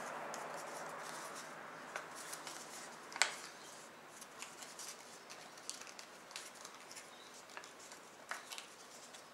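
A square sheet of white paper being folded and creased by hand: scattered soft crinkles and crackles, the sharpest about three seconds in, over a faint hiss that fades during the first few seconds.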